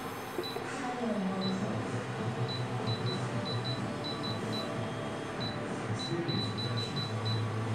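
Short high beeps from an induction cooktop's touch panel, one per press as the cooking timer is stepped up a minute at a time. The beeps come singly and in quick runs of two to five, over a steady low hum.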